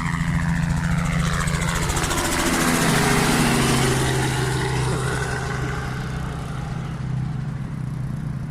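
Helicopter flying low overhead, its rotor chop and engine whine building to their loudest about three seconds in. It then fades with a falling pitch as it passes and moves away.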